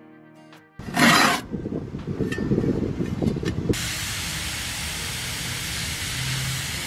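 Water sprayed as a fine mist, a steady hiss that starts about four seconds in. Before it come a short loud burst of noise and a crackly rustle.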